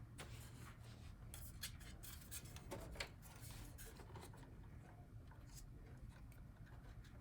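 Faint, scattered clicks and rubbing of hands handling cables and parts inside a desktop computer case, one click a little louder about three seconds in, over a low steady hum.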